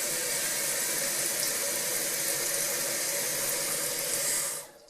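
Toilet fill valve refilling the tank after a flush: a steady hiss of rushing water that stops abruptly near the end.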